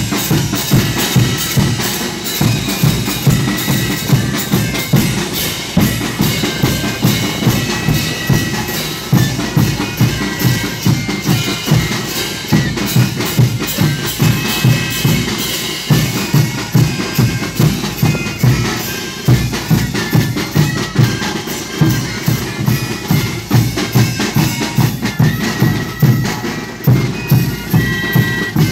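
Andean street band playing carnival music: big bass drums, snare drum and crashing hand cymbals keep a steady, driving beat under held melody lines from the band's wind instruments.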